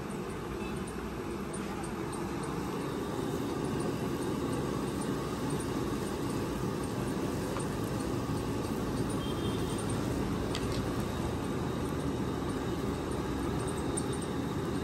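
A steady, low rumbling noise that holds level throughout, with one faint click about ten and a half seconds in.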